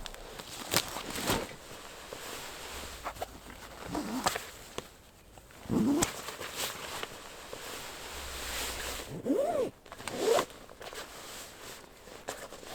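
Rustling and handling noises: a string of sharp clicks with a few brief zip-like rasps.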